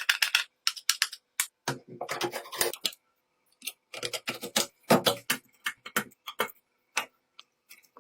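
Hand tools working on the metal parts of an old hand-operated hammer drilling machine: irregular clicks, knocks and short scrapes in quick clusters, with brief pauses between them.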